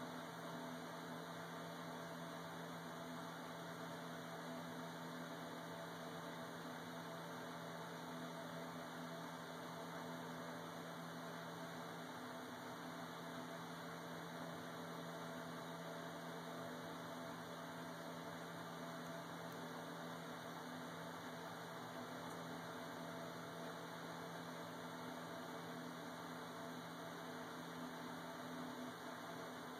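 A faint, steady low hum over a soft hiss, unchanging throughout, with no distinct calls or knocks.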